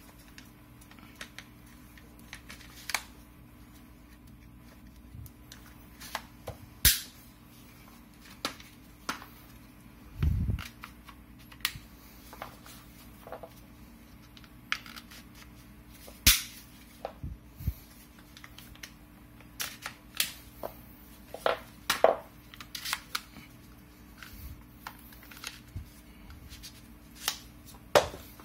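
Scattered sharp clicks and knocks of an IWI X95 rifle's polymer handguard and rail being handled, with the handguard fitted to and taken off the rail. There is a duller thump about ten seconds in.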